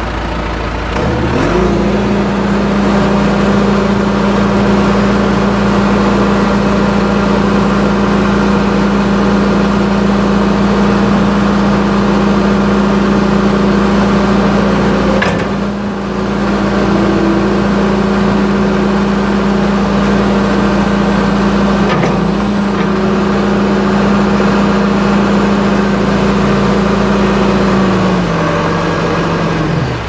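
John Deere 310SE backhoe's 4.5-litre four-cylinder turbo diesel is throttled up from idle about a second in and held at a steady higher speed while the front loader arm is raised and lowered. It drops back toward idle near the end, with a brief dip and a click about halfway through.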